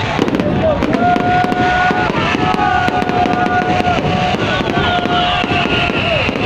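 Fireworks bursting and crackling overhead in a dense, continuous barrage of sharp pops and bangs. From about a second in, several long held notes of a second or so each sound over the din.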